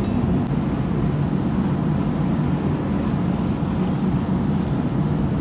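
Large motor yacht's engine running steadily, a low, even rumble.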